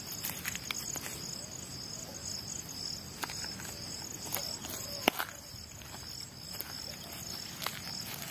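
Night insects chirping in a steady, evenly pulsing high trill, with scattered light clicks and one sharp tick about five seconds in.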